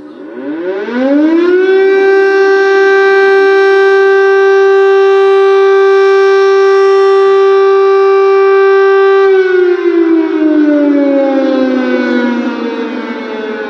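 Air-raid warning siren winding up, rising in pitch for about two seconds, then holding one steady loud tone before winding down and falling in pitch over the last few seconds.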